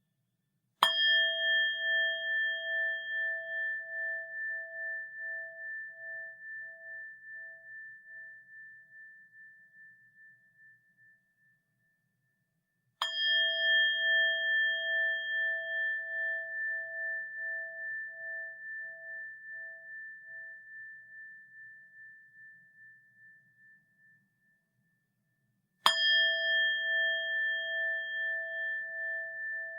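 Japanese Buddhist rin (bowl bell) struck three times, about twelve seconds apart. Each strike rings on in a long, slowly fading tone with a steady pulsing wobble, and the last is still ringing at the end.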